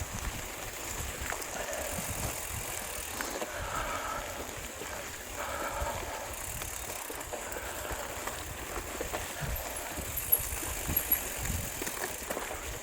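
Mountain bike being ridden along a dirt trail: steady rolling tyre and bike noise over an uneven low rumble.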